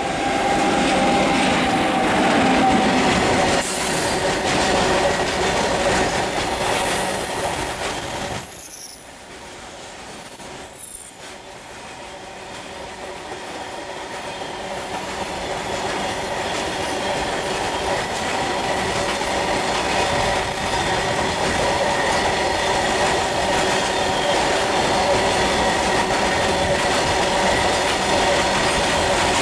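Electric freight train passing close by: the locomotive goes by first, then, after a brief drop in level about nine seconds in, a long string of loaded open BOXN wagons rolls past. The wheels clatter on the rails with a steady high squeal running under the rumble.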